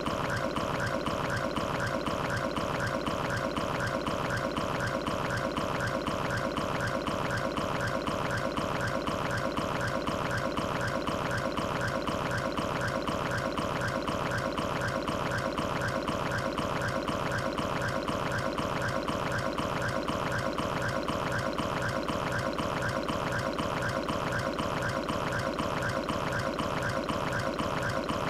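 Cartoon stomach-growl sound effect: continuous watery gurgling and sloshing at a steady level, with no let-up.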